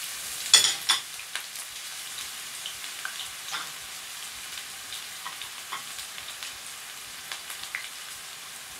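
Freshly added chopped onions sizzling in hot oil in a pot, a steady hiss with scattered crackles and pops. A couple of louder sharp clicks come about half a second to a second in.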